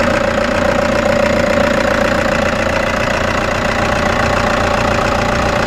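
Toyota Hiace Commuter's 2.5-litre 2KD four-cylinder diesel engine idling steadily.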